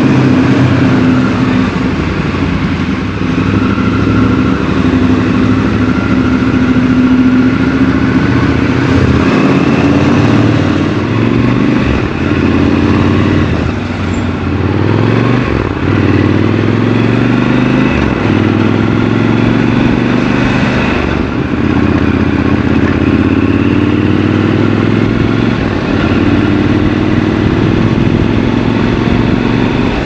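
Triumph Scrambler 1200 XC's 1200 cc parallel-twin engine under way, its pitch repeatedly rising with throttle and dropping back as the bike accelerates and eases off.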